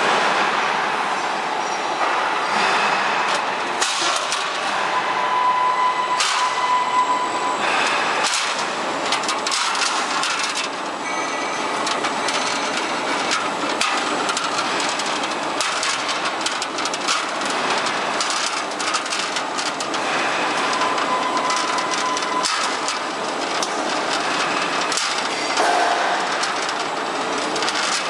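Automatic C/Z purlin roll forming machine running, with steel strip clattering through its forming stations: a steady mechanical noise full of frequent sharp clicks and knocks, and a brief whine twice.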